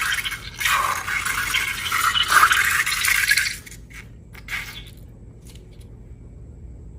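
Slime-making materials being scraped or poured into a container, a dense rustling hiss lasting about three and a half seconds. A few light clicks follow, then it goes much quieter.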